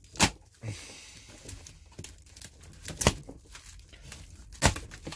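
Black plastic parcel wrapping and packing tape being cut with a knife and torn open, crinkling throughout, with three sharp loud rips: about a quarter second in, about three seconds in and near the end.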